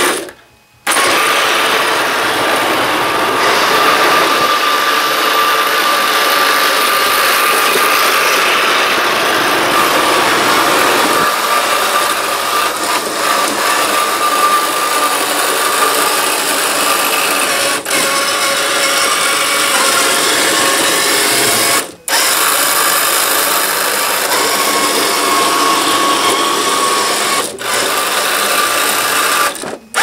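Remote-control 1/6 scale Sherman tank chassis driving: its electric drive motors and gearboxes whine steadily over the running noise of the tracks, breaking off briefly a few times.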